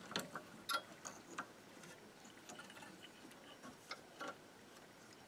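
Faint, irregular clicks and light taps of hands and tools handling a tape recorder's chassis and small parts during disassembly: a cluster in the first second and a half, then two more near the end.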